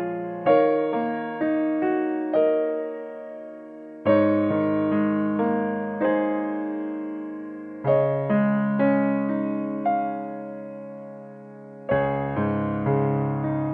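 Background music: soft piano, with a new chord struck about every four seconds and left to fade.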